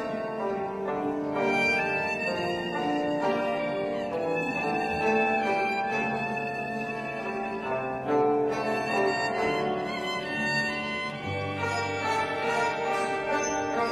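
Chinese orchestra playing, the bowed erhu section carrying a flowing melody over the rest of the ensemble.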